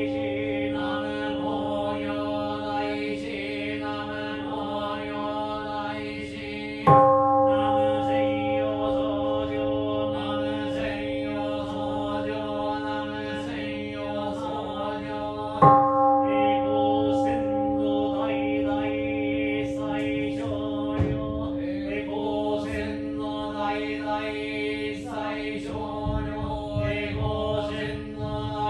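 Japanese Buddhist sutra chanting, with a large bowl-shaped temple bell struck twice, about nine seconds apart; each strike rings on under the chanting.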